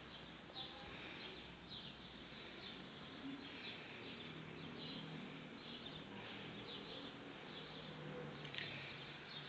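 Faint birds chirping outdoors, short high chirps repeating every second or so.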